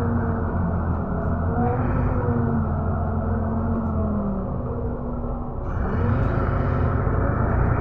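Engine and road rumble heard from inside a moving bus. The engine note sinks slowly, dips about five and a half seconds in, then grows louder again as the bus picks up.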